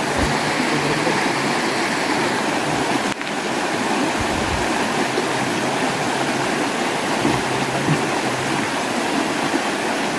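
Rushing water of a shallow rocky stream flowing over stones: a steady, even rush.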